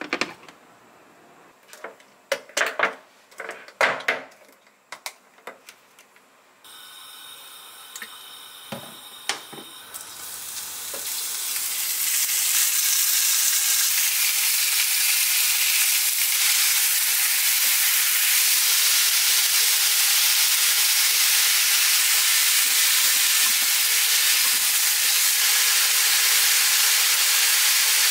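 A few clicks and knocks as a clip-lid glass food container is handled, then sliced raw pork frying in a hot pan: a sizzling hiss that builds up about ten seconds in and stays steady and loud.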